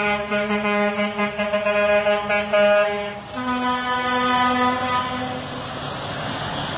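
Semi-truck air horn sounding a chord for about three seconds, then a second, slightly higher blast for about two seconds. After that it gives way to the truck's engine and road noise.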